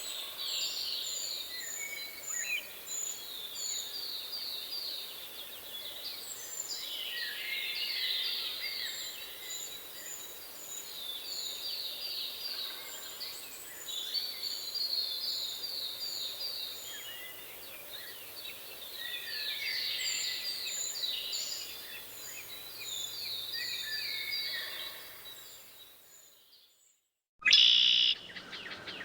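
Wild songbirds singing: repeated fast trilled phrases, with a second bird giving rows of short, high, thin notes between them. Near the end the song fades to silence for about a second, then cuts back in with a brief louder burst.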